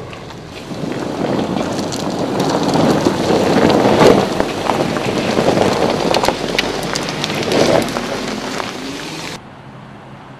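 Volkswagen Touareg's tyres rolling slowly over loose gravel and stones, crunching with many small clicks and pops of stones under the tread. It cuts off suddenly about a second before the end to a quieter, steady vehicle sound.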